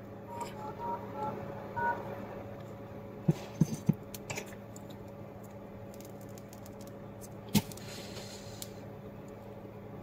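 Touch-tone keypad beeps from a Vivo Y15A smartphone's dialer: about five or six short beeps in the first two seconds as a USSD code is dialled to check the SIM's credit. A few light clicks follow about three to four seconds in, and one more at about seven and a half seconds.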